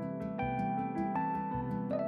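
Instrumental background music: sustained notes with a steady pulse of plucked attacks, about four a second.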